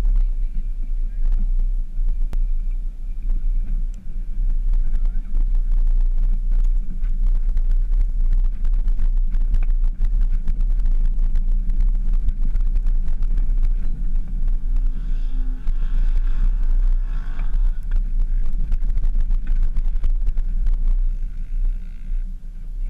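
Jeep Wrangler JK driving over sand dunes with its top off: a steady low rumble of engine and tyres, with heavy wind buffeting on the open-air microphone.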